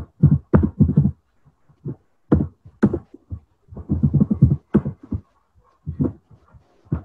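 A person's voice speaking in short, broken phrases.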